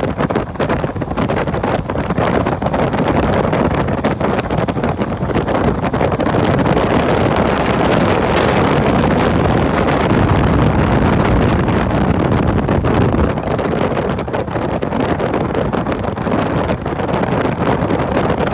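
Wind rushing and buffeting the microphone on a moving motorcycle, with the motorcycle running beneath it. A little louder through the middle.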